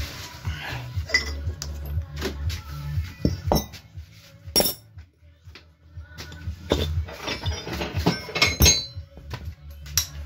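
Metal hand tools clinking and clanking in irregular knocks while car suspension nuts are loosened, over background music with a steady bass line.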